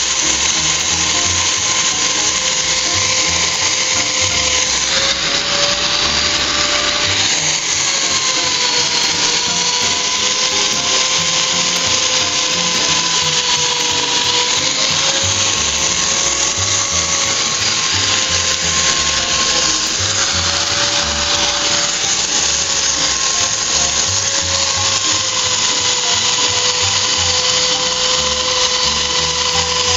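Hand-held polisher with a diamond pad grinding a terrazzo floor: a steady motor whine whose pitch wavers slightly, over a continuous grinding hiss.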